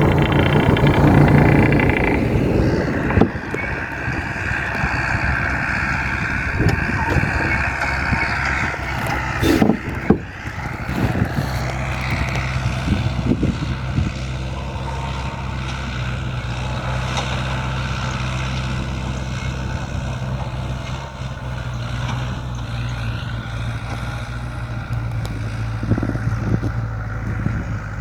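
Mercedes-Benz 1519 truck's diesel engine running, louder for the first few seconds, then settling to a steady idle. A couple of sharp knocks about ten seconds in.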